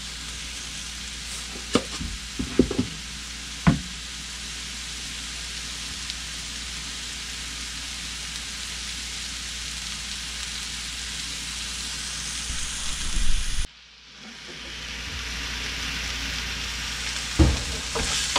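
Diced porcini (king bolete) mushrooms sizzling in olive oil in a frying pan, a steady hiss with a few sharp knocks in the first few seconds. The sizzle cuts out briefly about three-quarters of the way through, then returns and grows louder, with another knock near the end.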